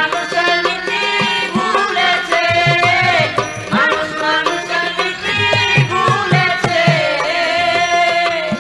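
Instrumental interlude of Bengali folk music: a melody line that slides and bends in pitch over a steady pattern of hand-drum strokes.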